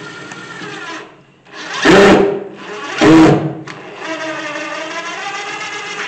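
Cordless drill/driver running in spurts as it drives screws into a metal door hinge: a steady motor whine, dipping slightly in pitch under load, broken by two louder harsh bursts about two and three seconds in.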